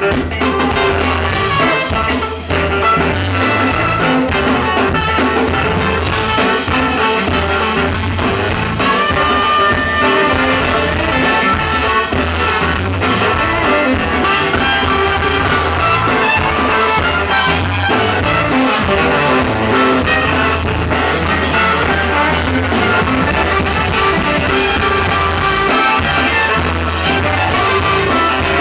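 Live funk band playing with a horn section of baritone saxophone, saxophone and trumpet over keyboards, guitar, bass and drums. The music is loud and dense throughout, with a heavy bass line.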